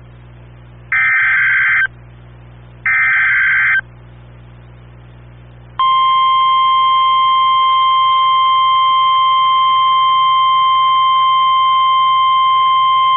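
NOAA Weather Radio emergency alert: two harsh one-second bursts of SAME digital header data, a second apart. About six seconds in, the steady 1050 Hz warning alarm tone starts and holds, the signal of a tornado warning being broadcast.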